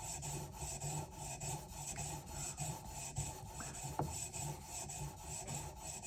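Knife edge being stroked back and forth on the 400-grit stone of a TS Prof Cadet guided sharpening system: a steady rasping at about two strokes a second. This is the medium-grit stage that bridges the coarse and fine stones, nearly finished.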